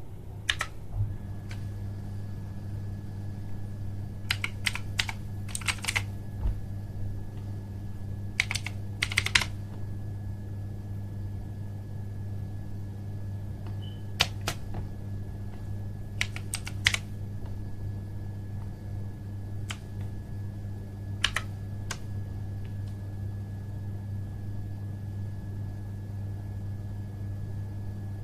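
Mechanical keyboard keys pressed now and then, single clicks and short clusters of a few key strokes with long pauses between, over a steady low hum.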